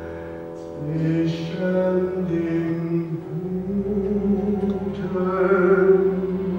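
A man singing a German-language musical-theatre song over instrumental accompaniment, holding long notes.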